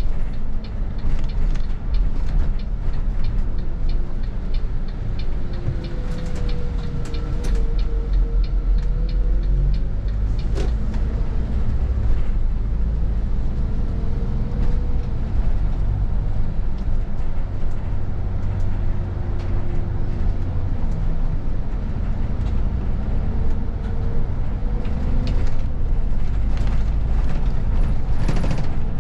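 Volvo coach driving in town, heard from the driver's seat: a steady low engine and drivetrain drone with road noise, faint whines that slowly rise and fall in pitch, and light ticks and rattles from the cabin.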